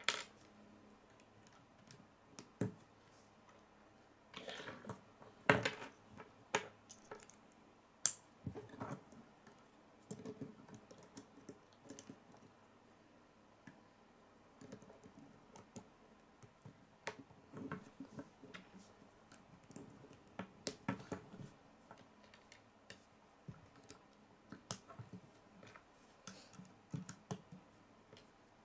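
K'nex plastic rods and connectors being snapped together and handled on a wooden tabletop: irregular small clicks and light knocks, with a few sharper clacks now and then.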